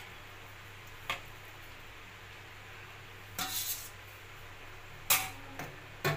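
Stainless steel tongs clinking and scraping against a steel plate and cooking pot as fried pieces are moved into the curry. There are a few sharp metal clinks and a short scrape, the loudest clink about five seconds in, over a low steady hum.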